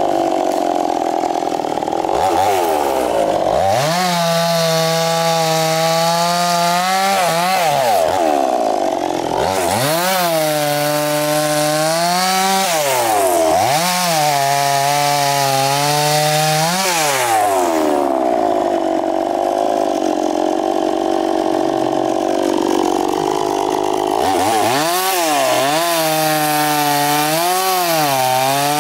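Two-stroke petrol chainsaw crosscutting a large albizia log, running hard under load. Its engine pitch dips and climbs back several times as the chain bites into the wood, with a steadier run in the middle.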